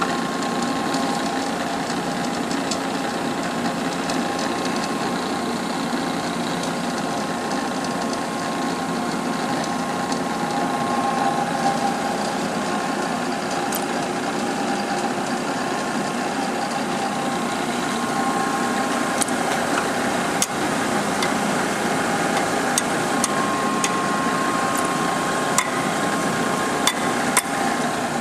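Cincinnati universal cylindrical grinder running under power: a steady mechanical hum with a couple of held whining tones, and sharp clicks every few seconds in the second half.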